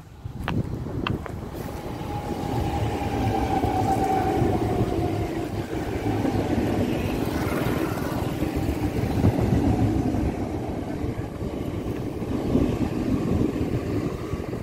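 An electric multiple unit (EMU) suburban train passing close by, its wheels running on the rails in a steady rumbling noise that builds over the first couple of seconds. A thin, slightly falling whine sounds over the first few seconds.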